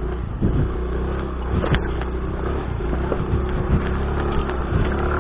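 Yamaha X-Ride motorcycle engine running at low speed over a rough, rutted dirt track. Frequent short knocks and rattles come from the bike jolting over the bumps.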